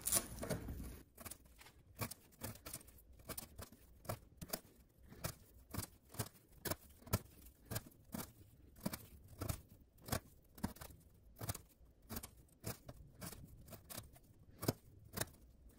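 Civivi Imperium folding knife slicing repeatedly through 3/8-inch twisted sisal rope laid against a wooden board, one short crisp cut at a time, about two a second.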